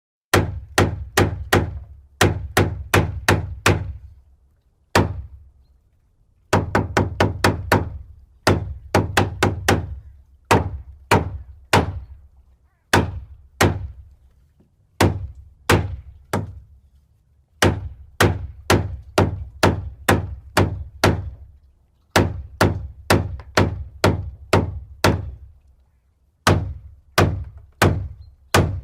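Hammer blows, struck in runs of several at about two to three a second with short pauses between the runs.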